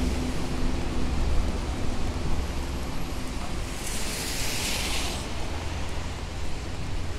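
Wet city street ambience: steady traffic rumble and hiss from vehicles on rain-soaked pavement. A brief louder hiss of about a second and a half comes near the middle.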